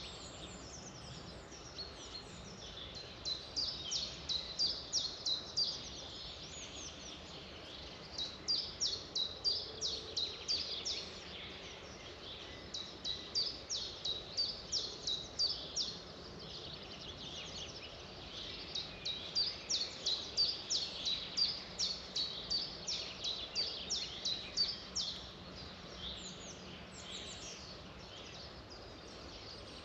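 Songbirds singing: bouts of quick, repeated high chirping notes, each lasting a few seconds with short gaps between, over a steady background hiss.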